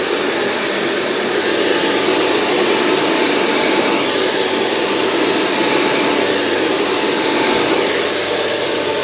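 Professional hair dryer blowing steadily, an even rush of air with a faint steady whine from its motor.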